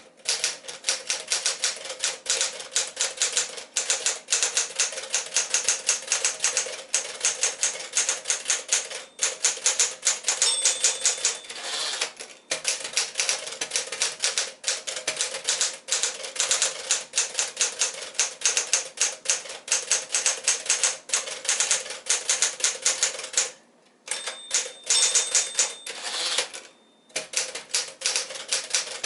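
1964 Smith-Corona Sterling manual typewriter being typed on at a quick, steady pace, its keys striking in rapid clicks with short pauses. A brief ringing tone sounds twice, about ten and twenty-four seconds in.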